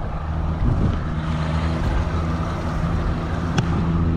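Outboard motor running steadily in forward gear, pushing a jon boat under way, over a rush of wind and water. A single sharp click comes near the end.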